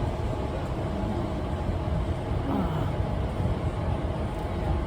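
Electric suburban passenger train running at speed, a steady rumble heard from inside the carriage with a faint steady motor whine over it.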